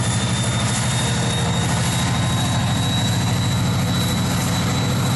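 EMD SD40-2 diesel-electric locomotive's 16-cylinder two-stroke diesel running steadily as the locomotive rolls slowly past under power. A thin high whine edges slowly upward over the low engine drone.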